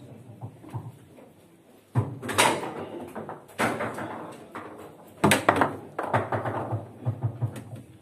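Foosball table in fast play: the ball, rods and plastic players knocking and clacking against each other and the table. Loud sharp knocks come about two seconds in and again around five seconds in.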